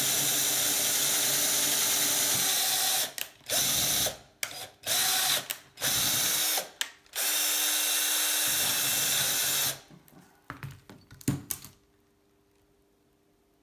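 Electric drill boring holes into a bicycle seat post: it runs steadily for about three seconds, then is switched on and off in several short bursts and one longer run. A few clicks and knocks follow near the end before it falls quiet.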